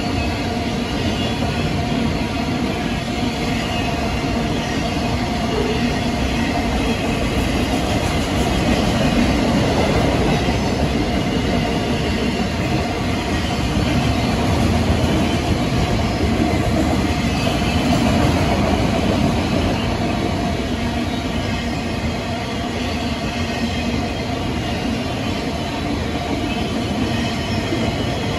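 CN train 273's cars rolling by on the rails, a steady, unbroken noise of wheels on track.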